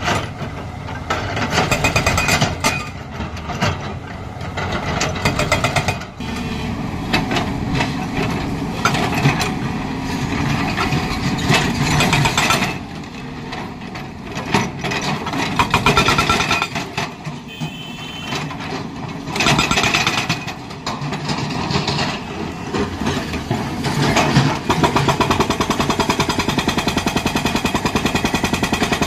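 Hydraulic rock breaker on a JCB excavator hammering stone in rapid strokes. It comes in bursts with short pauses, and the strokes run fast and even near the end.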